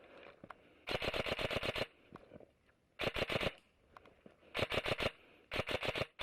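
Systema PTW electric airsoft rifle firing on full auto: four bursts of rapid clicking shots, the first about a second long and the other three shorter.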